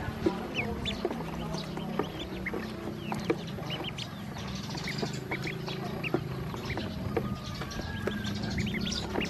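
A group of ducklings peeping: many short, high, rising peeps overlapping throughout, with a few light ticks among them.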